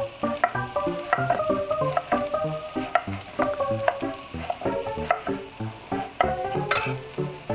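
Onion, carrot and tomatoes frying in hot oil in a kazan, sizzling as they are stirred. An instrumental tune of short melodic notes plays over it.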